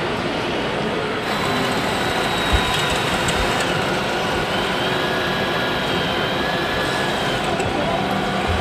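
Steady mechanical running noise with faint high whines that drift slightly in pitch, and one low thump about two and a half seconds in.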